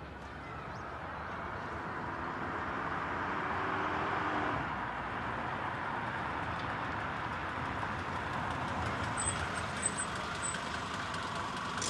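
Mercedes taxi approaching slowly and pulling up, its engine and tyre noise swelling over the first few seconds and then holding steady. Three brief high chirps come near the end.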